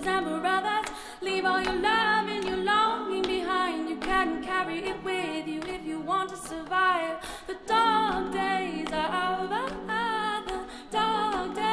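A cappella group singing: a solo female voice carries the melody over sustained backing chords sung by the rest of the group, which drop out briefly a couple of times.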